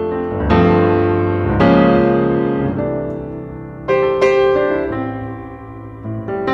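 Background piano music: slow chords struck and left to ring away.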